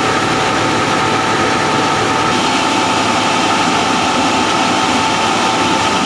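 Reheating furnace plant machinery running: a steady, loud industrial noise with a constant high whine on top.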